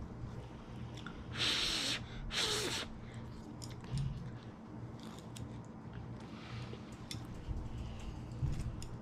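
A person slurping instant ramen noodles off chopsticks: two loud slurps about a second and a half and two and a half seconds in, followed by fainter slurping and chewing.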